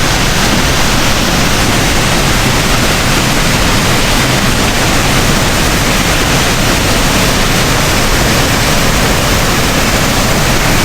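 Waterfall close by, a loud, steady, unbroken rush of falling water.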